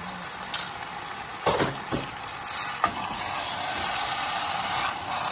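Chicken pieces sizzling in hot oil in a steel pot as a spatula stirs them, with a few sharp knocks and scrapes of the spatula against the pot in the first three seconds.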